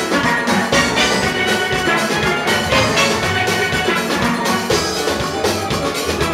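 Steel band playing: a full ensemble of steel pans, from chrome-plated high pans to black oil-drum bass pans, struck with sticks in a quick run of notes at an even loudness.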